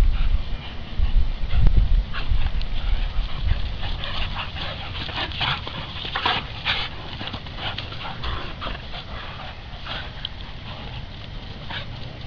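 Dogs play-fighting, with short, sharp dog yips and whimpers, most of them about four to seven seconds in. A low rumble of wind on the microphone sits under the first couple of seconds.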